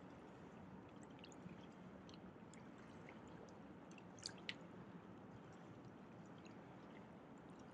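Faint river water with small drips and trickles as a rainbow trout is held in the shallow water by hand, with two brief small splashes about four seconds in.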